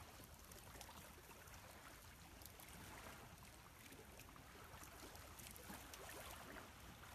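Near silence: a faint, steady rush of flowing water, with a few faint ticks.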